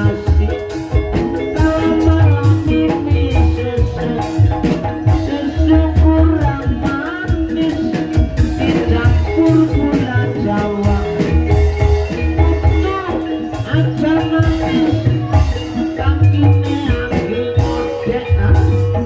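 Live gending ebeg accompaniment: a gamelan-style ensemble of tuned struck percussion playing a busy, steady pattern over regular low drum beats.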